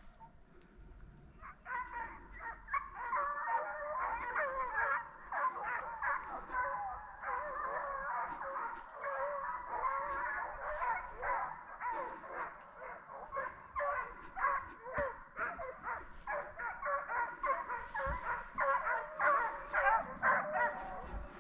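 A pack of deer hounds baying together, many voices overlapping, starting about a second and a half in: the hounds are running a deer's track.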